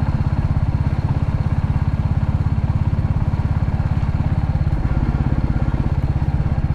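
Royal Enfield Classic 350's single-cylinder engine running steadily under way, an even pulsing beat, with a slight change in its note about five seconds in.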